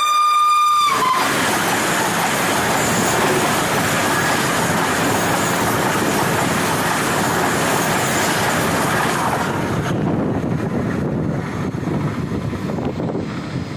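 A train horn's steady note cuts off about a second in. Then the Vande Bharat Express, an electric trainset, rushes past at speed on the adjacent track, a loud steady rush of wheels and air. After about ten seconds the hiss drops away to a lower rumble as the train recedes.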